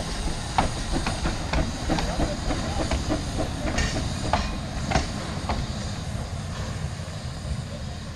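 Narrow-gauge steam locomotive pulling away with its coaches. Sharp clicks come about twice a second for the first five seconds or so, over a steady rumble and steam hiss, and the sound eases off as the train draws away.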